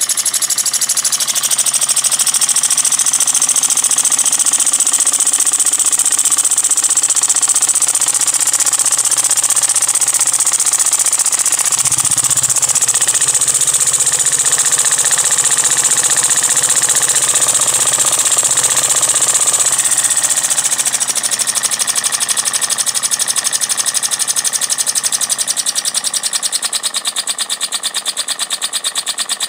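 Scratch-built rotary-valve model steam engine running fast on compressed air: a rapid, even chuffing clatter with a strong hiss of exhaust air, the hiss easing about two-thirds of the way through.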